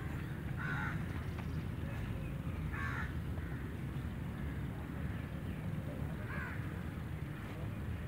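A crow cawing three times, a few seconds apart, over a steady low rumble.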